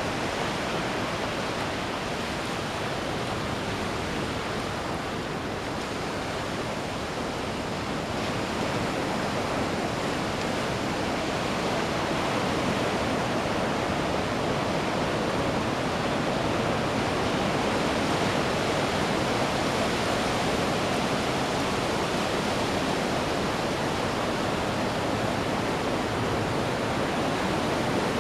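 Ocean surf on a beach: a steady rush of breaking waves that swells a little louder about a third of the way through.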